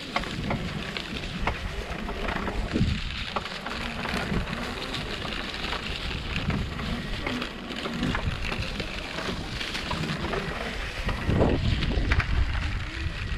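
Mountainboard wheels rolling and crackling over a dirt trail with wind buffeting the microphone, and scattered knocks as the board rides over bumps.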